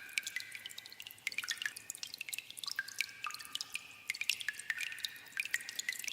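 Water dripping in a cave: many irregular drops, several a second, each a short high plink, some of them ringing on briefly.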